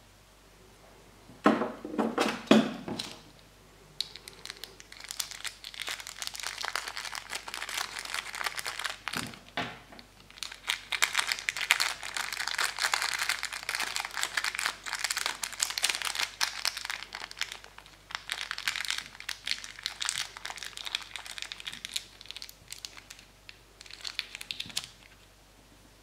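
A few knocks from handling, then a small clear plastic bag crinkling and crackling in dense bursts for about twenty seconds as hands work a small silver charm into it; it stops shortly before the end.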